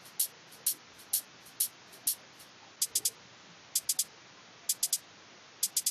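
Electronic hi-hat samples looping from FL Studio at 128 BPM: short, bright, very high ticks about two a second, changing about halfway to quick groups of three about once a second. A steady low hiss from the recording setup lies underneath.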